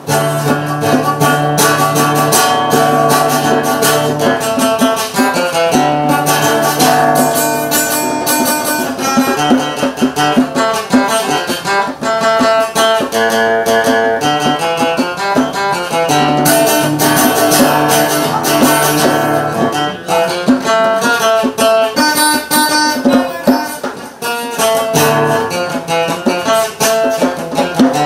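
Live instrumental music on acoustic guitar with djembe hand drumming, playing continuously with a steady beat.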